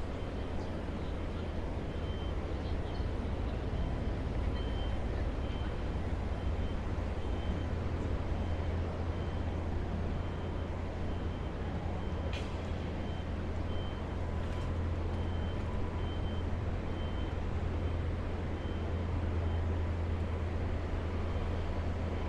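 City street traffic on a Manhattan avenue: a steady low rumble of engines and tyres. A faint high beep repeats a little under a second apart through much of it, and there are two sharp clicks just past the middle.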